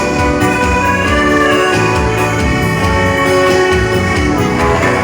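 Dance band playing an instrumental passage without singing: a melody over bass notes that change in a steady rhythm.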